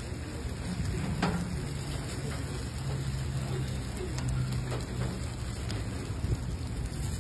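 Oyster omelette of egg, oysters and starch batter sizzling steadily on a hot flat griddle, with a low steady hum underneath and a few faint clicks.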